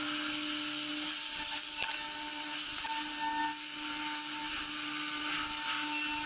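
CNC machining-centre spindle running an OSG AERO-O-ETS end mill at 18,000 rpm, roughing a block of A7075 aluminum. It makes a steady high whine over the hiss of cutting and flying chips.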